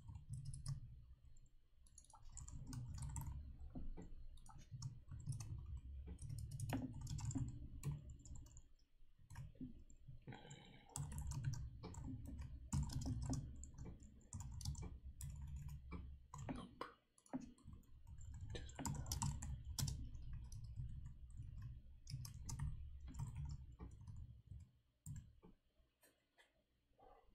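Computer keyboard typing: irregular, fairly quiet keystroke clicks in quick runs with brief pauses, over a low rumble.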